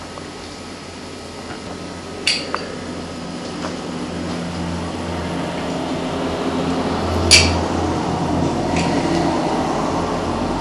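Kitchen utensils being handled over a pizza: a steady rubbing and scraping noise that grows louder, with two sharp metallic clinks, about two seconds in and again about seven seconds in.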